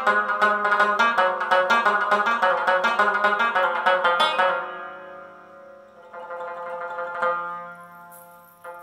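Background music on a plucked-string instrument: a fast run of plucked notes stops about halfway through, leaving notes ringing and dying away into a softer passage.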